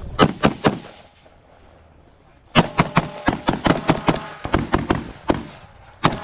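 Semi-automatic gunfire in quick strings: three rapid shots, a pause of nearly two seconds, then a long run of about fifteen shots fired in quick succession, and more shots near the end.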